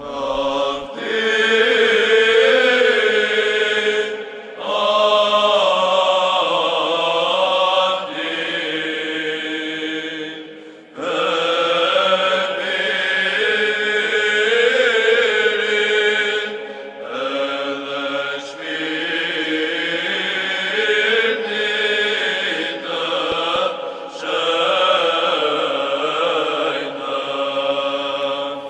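Orthodox church chant, sung in long phrases with short pauses about four and eleven seconds in; it cuts off abruptly at the end.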